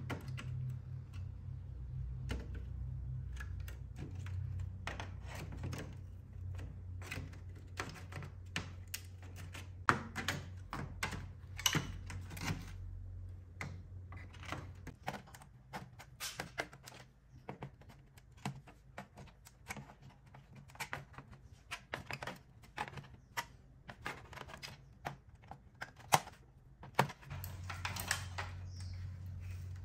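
Irregular sharp clicks and snaps of plastic and metal as needle-nose pliers work at the key rail and inner frame of a Casio electronic keyboard, over a low steady hum that drops out about halfway and returns near the end.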